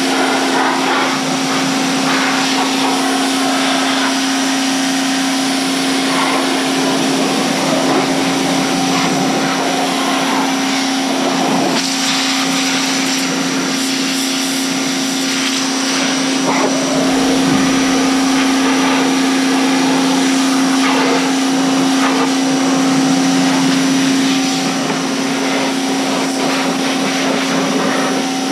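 Electric pressure washer running steadily, its motor and pump holding a constant whine under the hiss of the high-pressure water spray blasting mud off an ATV.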